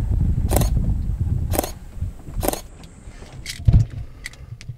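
Camera shutter clicks, about one a second, over a low rumble, then a single dull thump near the end.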